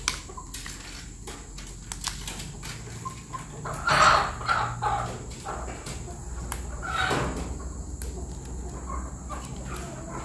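Chickens clucking, with two louder squawking calls about four and seven seconds in, and light clicks and taps between them.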